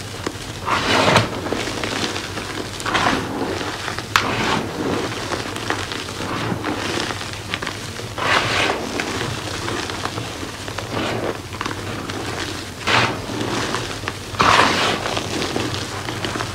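Hands squeezing and crumbling loose gym chalk powder and soft broken chalk pieces: a crackly, crunching hiss with a louder squeeze-crunch every second or two.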